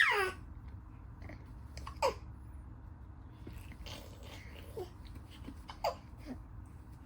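Baby babbling: a high squeal that slides steeply down in pitch right at the start, then a few short, scattered coos and squeaks, each falling in pitch.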